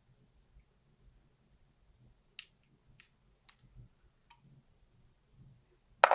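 Sparse, light clicks and ticks of small metal lock parts and tools being handled while a pin-tumbler lock is taken apart, with a louder knock at the very end.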